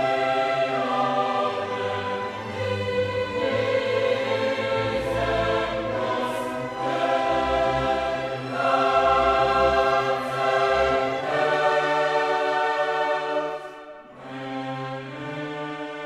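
Background music: a choir singing held chords over an orchestra, changing chord every second or two, with a short dip in level about fourteen seconds in.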